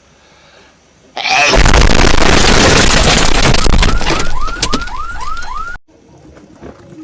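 A hedgehog's sneeze blown up into a meme sound effect. About a second in, a sudden, extremely loud and distorted explosion-like blast begins. It lasts about four and a half seconds, with a quick run of rising whoops near the end, then cuts off suddenly.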